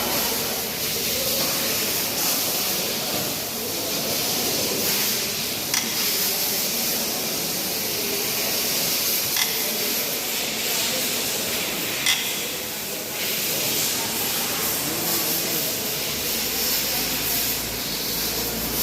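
Steady hissing noise, broken by three short sharp clicks spread through it.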